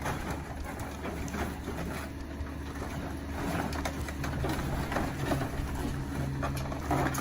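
Excavator engine running steadily with a low, even hum.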